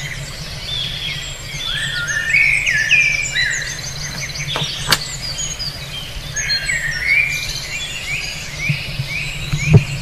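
Several birds chirping and calling at once, a busy chorus of short, rapidly repeated notes, over a low steady hum. A sharp click about five seconds in.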